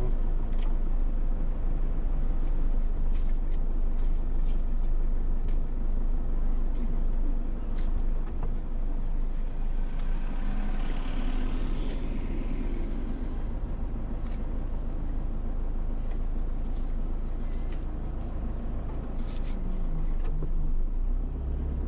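Car engine running with a steady low rumble, a few scattered clicks, and a brief hiss with a gliding whine about ten seconds in.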